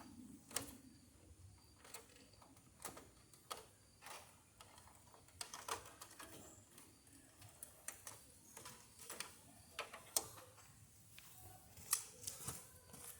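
Irregular small clicks and knocks of hands handling parts inside a desktop PC case, a few sharper taps standing out among lighter ticks.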